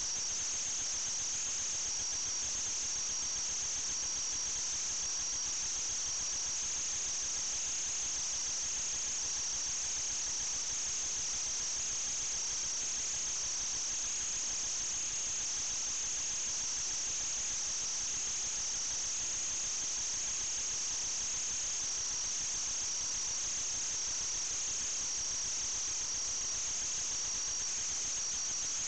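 A steady high-pitched whine over a constant hiss, wavering slightly in pitch but never stopping or changing in level.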